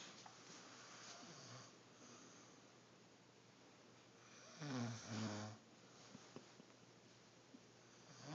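Snoring: soft breathing in the first second and a half, then about halfway one snore with a low, pitched drone in two quick pulses, and the next snore beginning at the very end.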